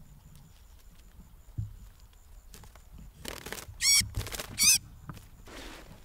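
A captured bird in the hand gives two short, loud, high-pitched calls about two-thirds of a second apart, just after a brief rustle.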